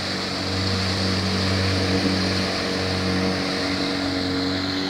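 Outboard motor of a small speedboat running at speed as it passes, a steady engine drone over the rushing of its wake; loudest about two seconds in, then easing slightly as the boat moves off.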